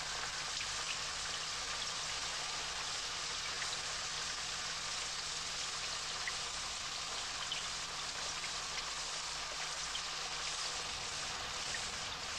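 Steady rain falling: an even, continuous hiss with faint scattered drop ticks.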